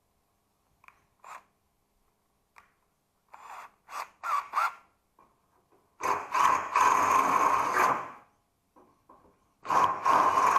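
A metalworking tool working the bonnet panel: a few short strokes in the first half, then a loud stretch of noise lasting about two seconds from about six seconds in, and another starting near the end.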